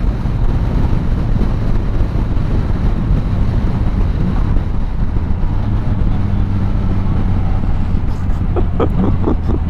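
Yamaha Tracer 900's three-cylinder engine with an Akrapovic exhaust running steadily at riding speed, the pitch shifting only slightly, with wind noise over the helmet camera.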